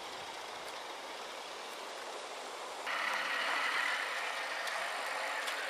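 Electric motors and gearboxes of radio-controlled trucks whirring as one truck tows another on a strap. A steady whir that turns suddenly louder and higher about three seconds in.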